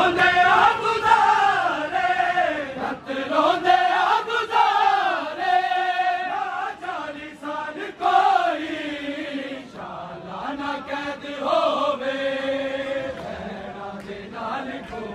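A noha, a Shia mourning lament, chanted by a male voice in long, wavering held notes, growing softer near the end.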